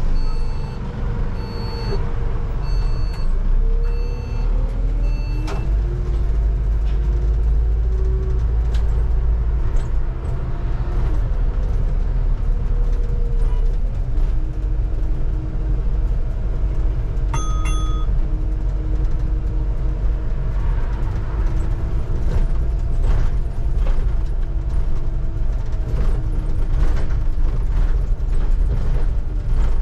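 A London bus driving along, heard from the driver's cab: a deep engine and road rumble, with a whine that rises and falls in pitch as the bus speeds up and slows. A beep repeats about once a second for the first five seconds, and a single short electronic beep sounds about eighteen seconds in.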